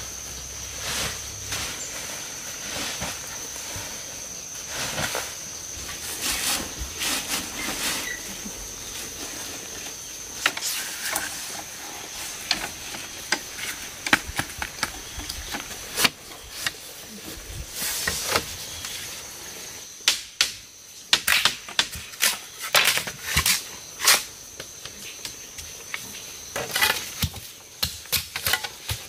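A steady high insect drone, with irregular sharp clicks and knocks that come more often in the second half.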